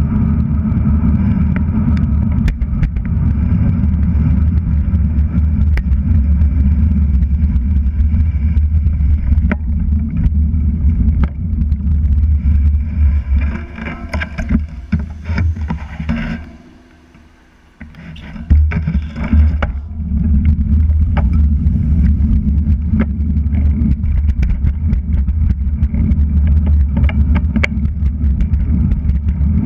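Wind buffeting the microphone of a GoPro Hero3+ on a moving road bike: a steady low rumble with road and tyre noise, light clicks and passing traffic. A little past halfway the rumble dies away almost to quiet for about two seconds, as the bike slows, then comes back as it picks up speed.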